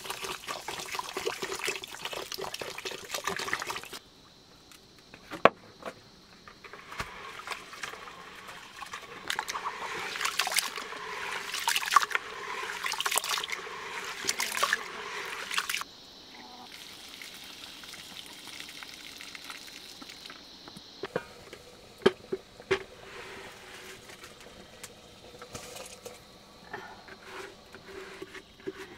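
Water pouring from a plastic bottle into a plastic bucket for about four seconds. Then, after a short pause, a hand swishing and rubbing in the water in the bucket, with splashes and knocks against the plastic. The sound fades to scattered soft clicks after about sixteen seconds.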